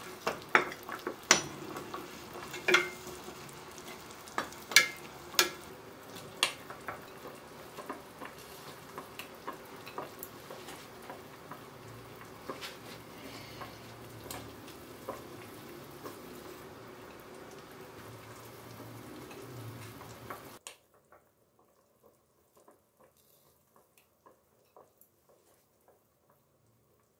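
Metal slotted spatula clinking and scraping against a stainless-steel pot as simmering beef broth is stirred, with sharp clinks mostly in the first few seconds over a steady simmering hiss. About twenty seconds in the sound cuts to near silence with only faint ticks.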